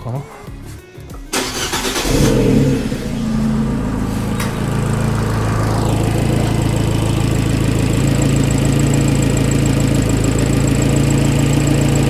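2014 Abarth's 1.4-litre turbocharged four-cylinder engine starting: cranking about a second in, catching with a brief rev about two seconds in, then settling into a steady idle, with a single click a couple of seconds later.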